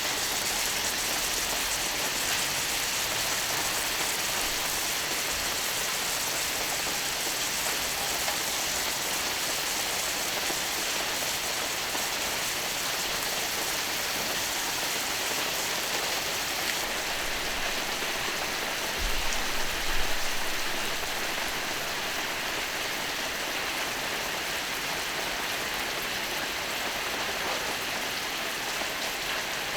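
Skirt steak sizzling steadily on a hot iron griddle, with a brief low bump about two-thirds of the way through.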